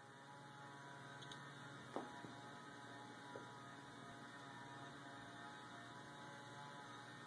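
Old ignition transformer humming steadily while energized, with a few faint snaps about one, two and three and a half seconds in.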